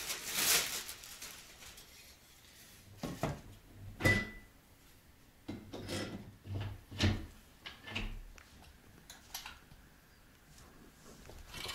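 Assembling a sit-up exercise bench: scattered knocks and clicks of frame parts and tools being handled and fitted, with a rustle of plastic packaging near the start.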